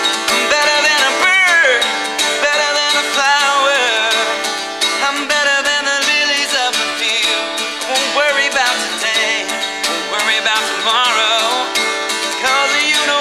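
Acoustic guitar strummed steadily, with a wavering melody line over it, in an instrumental stretch of a folk-country song.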